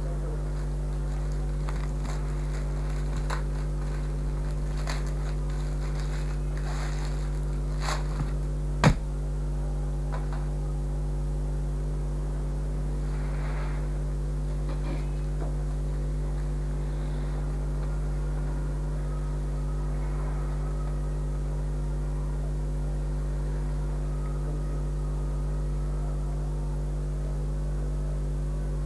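Steady electrical mains hum with light scattered clicks and rustles from handling, and one sharp click about nine seconds in.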